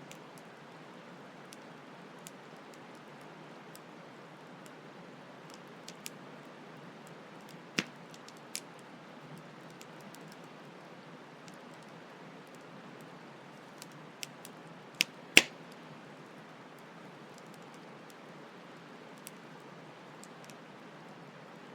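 Campfire crackling, with scattered small ticks and a few sharp loud pops, a pair about 8 seconds in and a cluster near 15 seconds, the loudest of them all. Under it, a steady hiss of flowing stream water.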